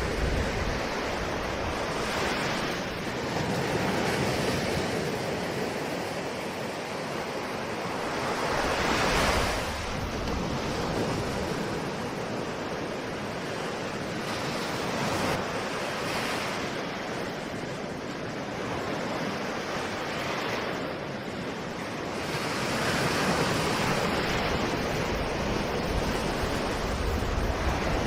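Ocean surf: a continuous rush of breaking waves that swells and ebbs every few seconds, with the strongest surge about nine seconds in.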